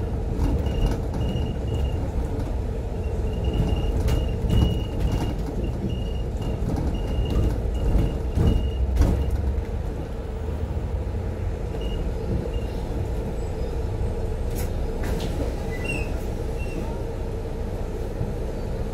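Double-decker bus heard from on board: engine and road rumble as the bus slows, then a steadier, slightly quieter engine idle from about ten seconds in once it has pulled up at the stop. A thin high squeal comes and goes in short bursts through the first half.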